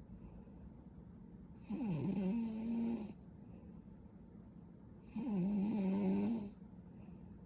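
A young woman snoring in her sleep: two snores about three and a half seconds apart, each over a second long and held on a steady low pitch.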